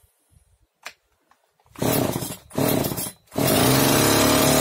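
Oleo-Mac 947 two-stroke chainsaw being pull-started: two quick pulls of the starter cord, and the engine catches on the second about three and a half seconds in and runs steadily. It starts and keeps running after its cracked fuel pickup hose, which had been drawing in air and starving the engine of fuel, was replaced and the carburettor re-tuned.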